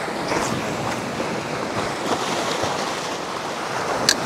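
Sea waves washing against a rocky shore, with wind buffeting the microphone. A single sharp click comes near the end.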